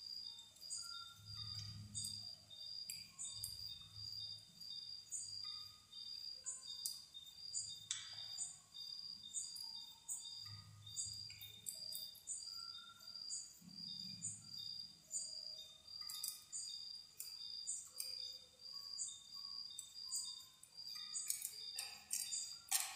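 Faint, high-pitched chirping that pulses about three times a second, with scattered short calls over it and a few soft low knocks.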